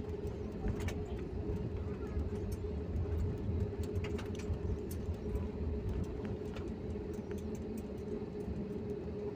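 Inside a jet airliner's cabin as it rolls along the runway after landing: a steady low rumble with a steady engine hum, and scattered light clicks and rattles.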